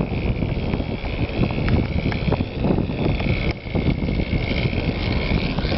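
OS .46 LA two-stroke glow engine of a radio-control airplane in flight, a high steady whine that drifts slowly lower in pitch and rises again near the end. Heavy wind buffeting on the microphone runs underneath.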